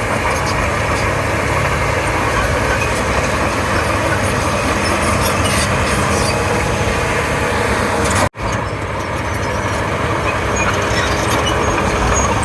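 Komatsu D31P crawler bulldozer's diesel engine running under load as it works, a steady dense rumble. The sound cuts out for an instant about eight seconds in, then resumes.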